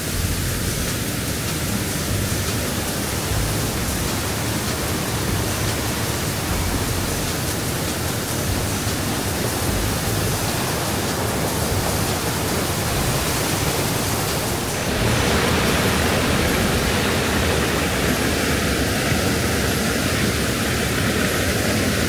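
Steady roar of the Iguazú Falls, an even rush of falling water that grows a little louder about fifteen seconds in.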